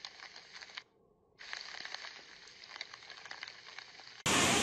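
Faint crackling with scattered clicks, cutting out briefly about a second in. Near the end a sudden loud, steady rush of water starts.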